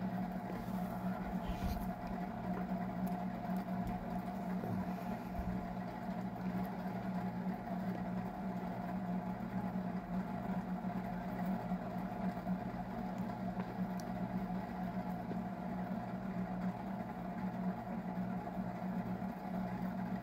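A steady low hum with a constant tone, with a few faint clicks and taps.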